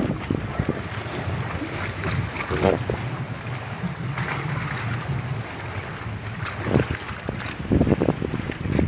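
Wind buffeting the microphone in gusts, over the rush of choppy lake water, with a faint low hum underneath.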